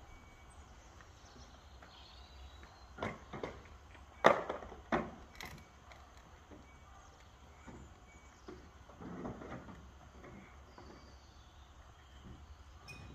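A few scattered knocks and clacks, the loudest about four seconds in, over a steady low rumble, with a few faint high chirps.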